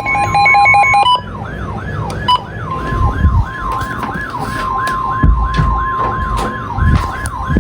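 Emergency alert tones sounding together. A pulsed beeping tone stops about a second in. Then a fast siren-like warble sweeps up and down about three times a second, and from about three seconds in a steady single-pitch alert tone sounds over it.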